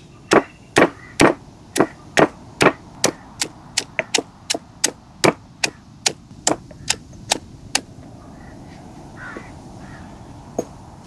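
Stone pestle pounding in a stone mortar, about nineteen sharp, even knocks at roughly two and a half a second while crushing ingredients. The pounding stops about eight seconds in, and one light knock follows near the end.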